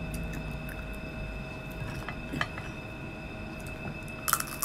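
Mouth sounds of eating crispy fried pork knuckle skin: a few faint wet clicks, then a quick cluster of sharp crunches near the end as a piece is bitten into. A faint steady whine sits in the background.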